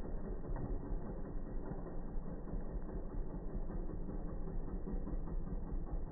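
Chainsaw engine running steadily.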